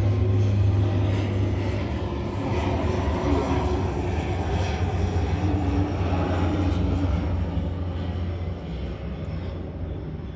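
A steady low engine-like drone with a rushing noise over it, easing off slightly near the end.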